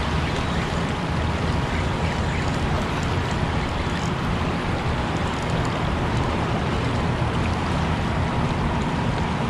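Fast, turbulent river tailwater below a dam rushing past a rocky bank: a steady, even roar of moving water.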